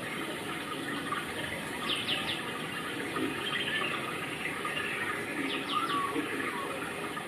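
Steady rushing of running water, with two short bursts of bird chirps about two seconds in and again near six seconds.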